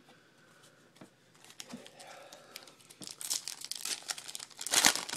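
Wrapper of a 2012 Bowman baseball card pack crinkling and tearing as the pack is opened. It starts faint, then builds from about three seconds in, with the loudest rip near the end.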